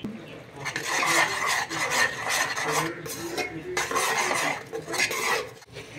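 A spoon scraping and stirring ground spices in oil around the bottom of a pressure cooker, in repeated rough strokes that start about half a second in. The masala is being stirred and fried.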